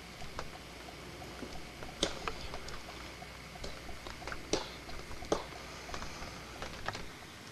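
Scattered light knocks and clicks over a steady faint hiss, with the clearer knocks about two seconds in, at four and a half, and at five and a half seconds.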